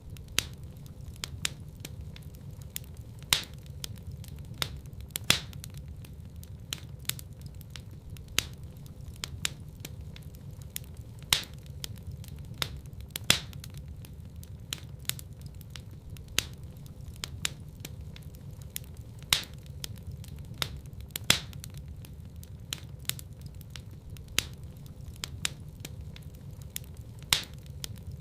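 Wood fire crackling in a fireplace: irregular sharp pops and snaps, a few of them much louder, over a steady low rumble of the flames.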